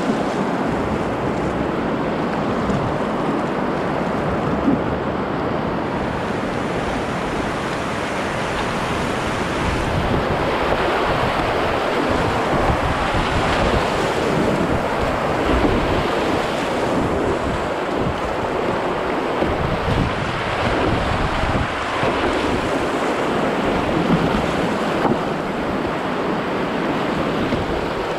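Whitewater rapids rushing and splashing around a kayak running class II+ drops and slides, with irregular low rumbling buffeting on the microphone. Slightly louder through the middle as the boat passes through the roughest water.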